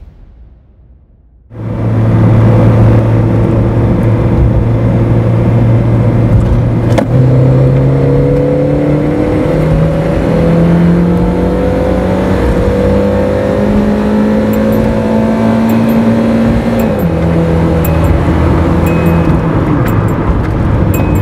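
Toyota AE86 Corolla's 4A-GEU 1.6 L inline-four with a four-speed automatic. It starts after a short silence, cruising steadily at about 3600 rpm in 2nd gear. About 7 seconds in it goes to full throttle and the revs climb steadily for about ten seconds, then the pitch drops as the automatic shifts up, and it pulls on under load.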